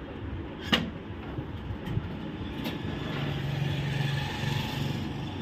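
Steady background noise with one sharp click about three-quarters of a second in. A low steady hum comes in for about a second and a half in the second half.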